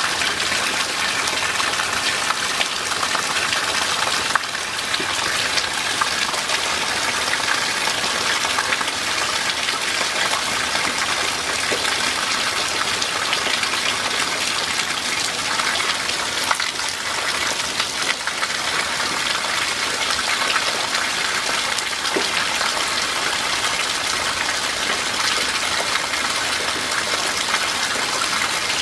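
Steady rain falling: an even hiss with scattered small ticks of drops.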